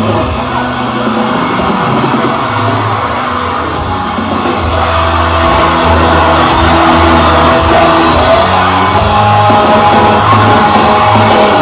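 Loud rock music with a pulsing bass line and sustained held notes.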